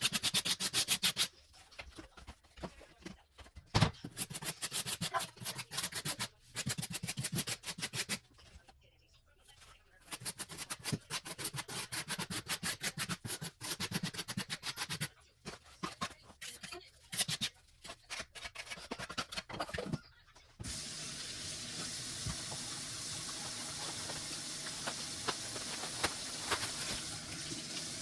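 Grout being worked over tile in quick, repeated scraping strokes, in runs broken by short pauses. About 21 seconds in the scraping stops abruptly and water runs steadily from a tap.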